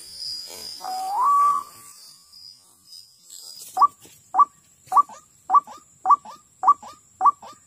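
White-breasted waterhen calling: one rising note about a second in, then from about four seconds in a steady run of short rising double notes, nearly two a second. A steady high-pitched buzz runs behind.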